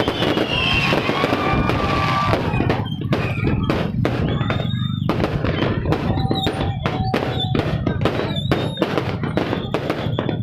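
Fireworks going off in quick succession: many sharp bangs and crackles, with high whistling tones sliding down in pitch in the first couple of seconds.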